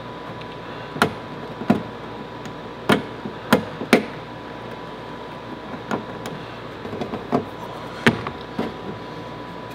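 Irregular sharp taps and clicks of a hand tool against the sign panel as painter's tape is worked and trimmed along its edge. The taps are strongest in the first four seconds and lighter and more scattered after, over a steady faint hum.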